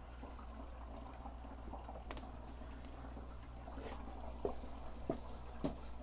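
Small circulator pump of a compost water-heater loop running with a steady low hum, water running through it. A few faint knocks near the end.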